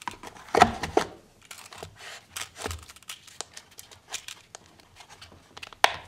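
Handling noise of a nylon belt pouch and a cardboard gift box: scattered light clicks, taps and rustles. The sharpest click comes just before the end.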